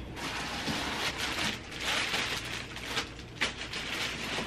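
Clear plastic wrapping crinkling and rustling around a new infant car seat as it is pulled out of a cardboard box, with a few sharp crackles.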